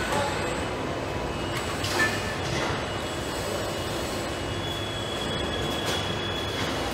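Car assembly plant floor noise: a steady machinery din with faint high whines. There is a short clunk about two seconds in and a high whine for a couple of seconds near the end.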